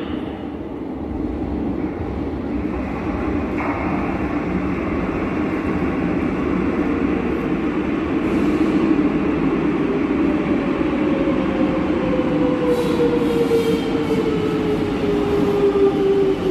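Madrid Metro Line 6 train pulling into an underground station: a rumble of wheels on the rails that grows gradually louder. Over the last several seconds a whine falls steadily in pitch as the train brakes along the platform.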